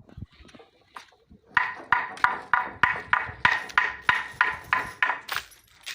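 A hammer driving nails into roof timber, about a dozen quick, even blows at roughly three a second, each ringing with a clear metallic ping.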